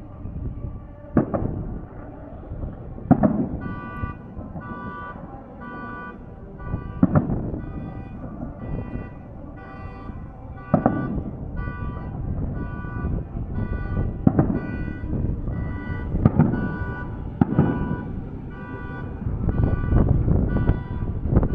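Aerial fireworks bursting, with sharp bangs every one to four seconds over a low rumble. From about four seconds in, an electronic alarm beeps in a steady pattern about twice a second.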